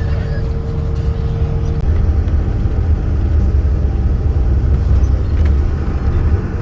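Greyhound bus engine and road noise heard from inside the cabin: a steady low rumble. A steady hum drops out and the engine note changes about two seconds in.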